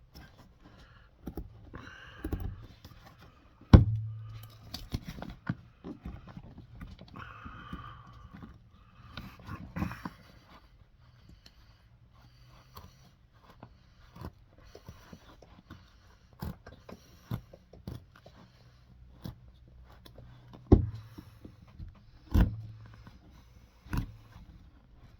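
Hand tools knocking, tapping and scraping against a boot and a workbench during shoe resoling: scattered sharp knocks, the loudest about four seconds in and a few more near the end, between stretches of light scraping and rustling.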